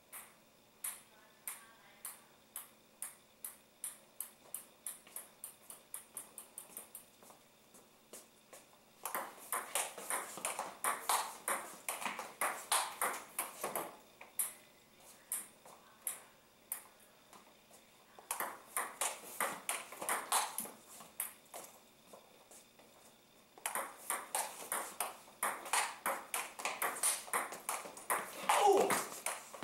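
Table tennis ball clicking off paddles and the table in fast loop-and-counterloop rallies, in three bursts of rapid hits. Before the first rally comes a run of single ball bounces that come closer and closer together.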